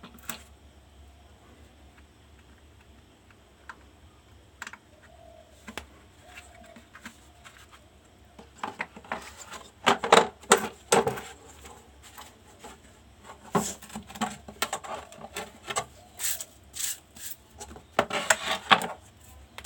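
Small clicks, taps and rattles of parts being handled on an opened induction cooktop, such as its keypad connector being fitted. The first half is mostly quiet with a few faint knocks. From a little before halfway the clicks come in irregular clusters, loudest a little past halfway and again near the end.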